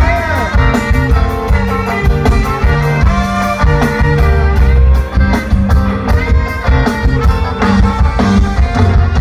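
Ska band playing live through a loud festival PA, heard from the crowd: full-band music with a steady drum beat and bass line.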